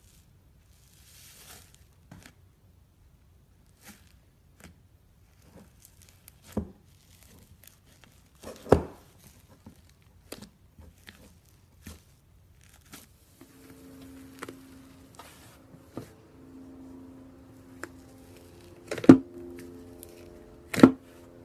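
Slime being handled and pressed: irregular sticky clicks, crackles and pops, with a few much louder snaps. A faint steady low tone comes in about two-thirds of the way through.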